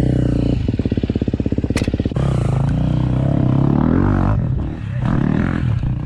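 Dirt bike engine running with a fast, even putter, then revved up and down a few times from about two seconds in.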